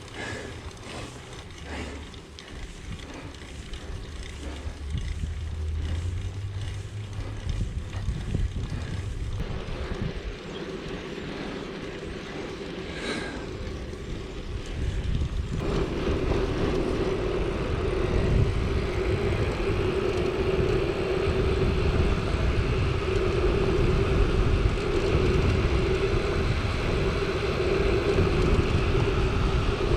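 Mountain bike being ridden: wind on the helmet-camera microphone and rolling tyre noise. About halfway through a steady hum sets in over the noise and holds to the end.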